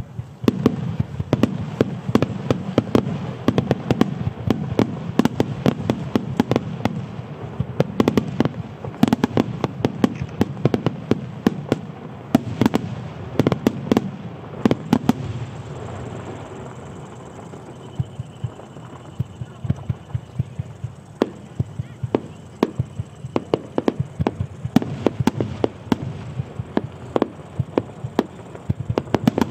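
Star mine fireworks barrage: aerial shells bursting in rapid succession, many sharp bangs a second overlapping. The bangs thin out for several seconds after the middle, then come thick again near the end.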